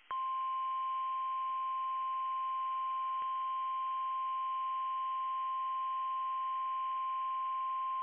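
NOAA Weather Radio's 1050 Hz warning alarm tone: one steady, unbroken high beep received over the radio, the signal that a tornado warning broadcast follows.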